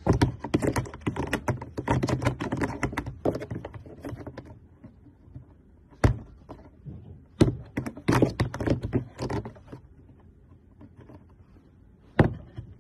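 Quick flurries of light tapping and clicking knocks, like fast typing: a dense run of taps, a couple of single taps, a second run, then one sharp tap near the end.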